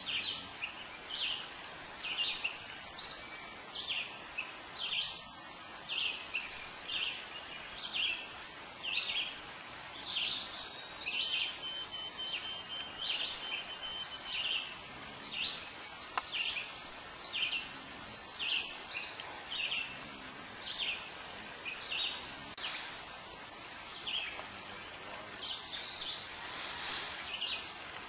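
Songbirds on the lakeshore calling: a steady series of short, high chirps about once a second, broken about every eight seconds by a louder rapid trill.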